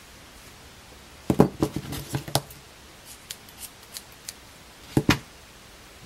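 Handheld scissors being handled and snipping through thick chenille yarn: a quick cluster of clicks about a second in, a few light ticks, then two sharp snips close together about five seconds in.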